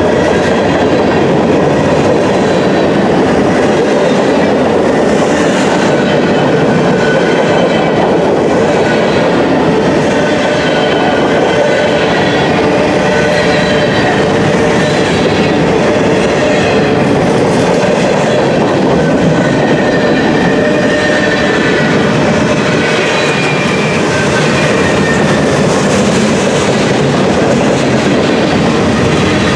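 Freight train of covered hopper cars rolling past at close range, a steady, loud rumble and clatter of steel wheels on the rails.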